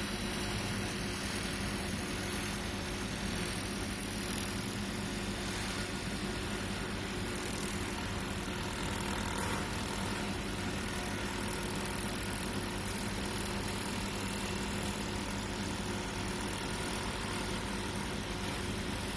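A 400 W fiber-transmission laser welding machine at work gives a steady hum with a constant hiss. There are no separate clicks or changes in pitch.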